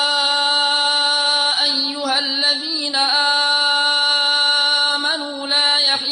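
A male Quran reciter's voice holding one long, drawn-out melodic note on the opening "yā ayyuhā" of a verse, chanted in tajwid style. The pitch stays steady, with brief ornamental turns about two seconds in and again near five seconds.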